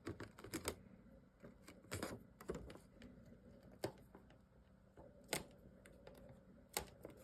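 Scattered light taps and clicks of chipboard and paper craft pieces being handled on a tabletop, about half a dozen, a second or so apart.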